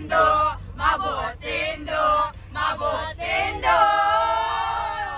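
A group of voices singing or chanting in short rhythmic syllables, then holding one long note that fades away.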